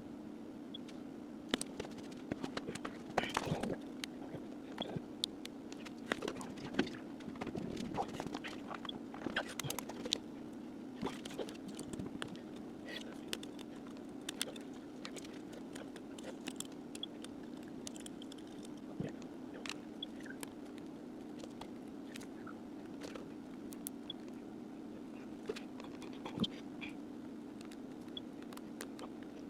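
Scattered small clicks, ticks and taps of hands and small tools working on a phone's parts, busiest in the first few seconds, over a steady low hum.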